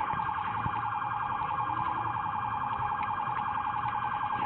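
Police car siren in a fast pulsing warble, many pulses a second, heard from inside the moving patrol car's cabin.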